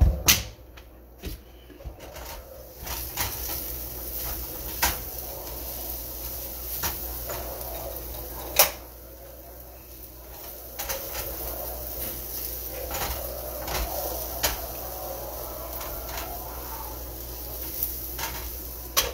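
Scattered knocks and clinks of a glass pot lid and a cooking utensil against pans on a stovetop, the loudest about eight and a half seconds in, over a faint steady hiss.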